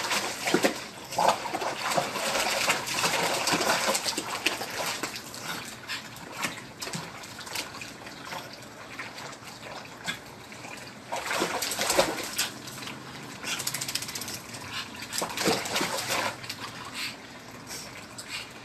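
Pug puppy splashing and thrashing in a tub of soapy water, loudest in the first few seconds and in two more surges of splashing later on.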